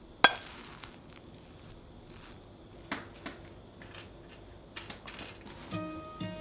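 Wooden rice paddle working cooked rice in an earthenware pot and scooping it into a ceramic bowl: one sharp clack with a short ring near the start, then a few softer knocks. Acoustic guitar music comes in near the end.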